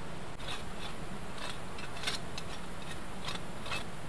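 Pink plastic hand trowel scraping and scooping at gravel and charred fire debris, about six short scrapes over a steady low background noise.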